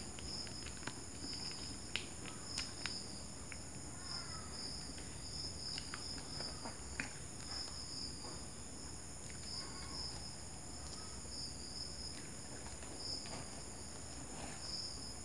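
Insects chirping in a steady pulsing trill, with faint crinkles and clicks from a plastic sauce sachet being squeezed and paper hot-dog wrappers being handled.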